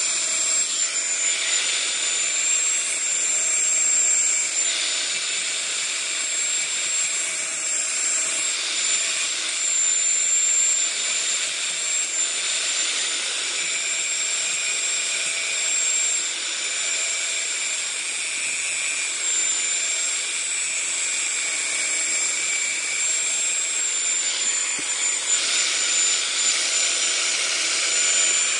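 Power grinder grinding a bolt into the pointed tip and cutting edges of a woodworking drill bit: a continuous high whine over a steady hiss, the tone wavering slightly as the metal is pressed to it.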